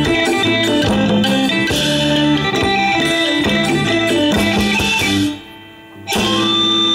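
Live instrumental music from a lam klon (Isan sung-verse) band, led by a plucked string instrument over a bass line. The music drops away for under a second about five seconds in, then comes back with steady held notes.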